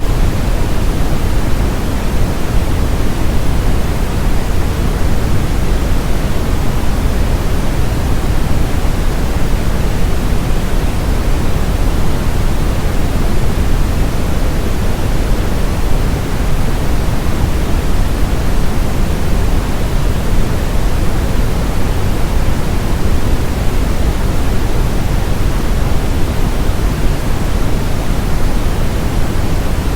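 Brown noise: a steady, even rushing hiss weighted toward the low end, unchanging throughout.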